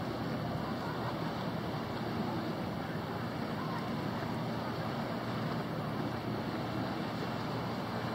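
Steady wash of wind on the microphone and choppy lake water, with the low drone of a flybridge motor yacht cruising slowly.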